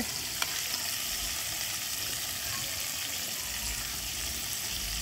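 Steady hiss of a pot of rice and red beans in coconut milk cooking over a charcoal coal pot, with one light click about half a second in.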